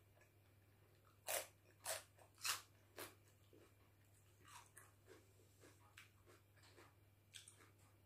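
A person chewing a crisp raw green vegetable with four loud crunches about half a second apart, followed by softer chewing clicks.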